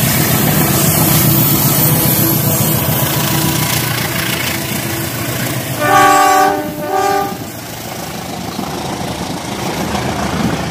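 Toy train set running on plastic track, its motor and wheels making a steady whirring rattle. About six and seven seconds in, it sounds two short horn blasts from its electronic sound unit; the first is the loudest.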